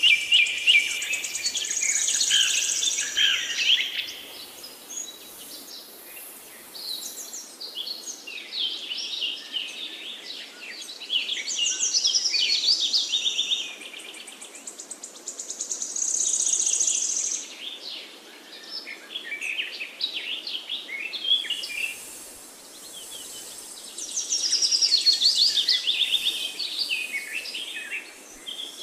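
Songbirds singing and chirping in quick, varied, high-pitched phrases that come in bursts every few seconds, over a faint steady background noise.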